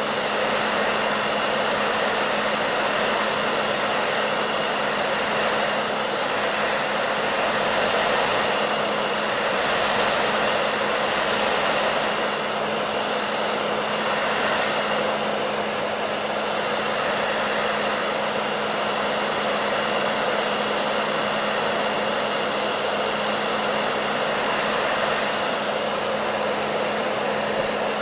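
Hair dryer running steadily: a continuous rush of blown air over a steady motor hum, the rush swelling slightly a few times.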